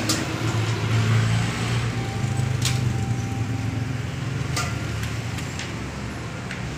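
A motor vehicle engine running steadily in the background with a low hum, and a few sharp clicks from parts being handled on the opened motorcycle engine.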